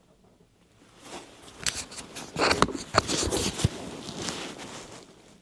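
Close rustling and handling noise with several sharp clicks and scrapes, starting about a second in and loudest in the middle, then tailing off.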